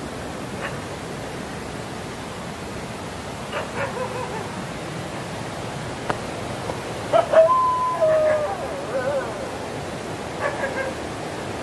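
An animal calling several times: short calls, then a longer drawn-out call with held and gliding pitch about two-thirds of the way in, which is the loudest sound. Steady hiss runs underneath.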